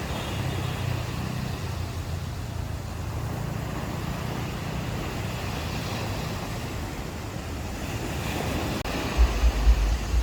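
Ocean waves washing onto the shore, a steady surf wash with one wave building near the end. About nine seconds in, wind buffets the microphone in a few low thumps.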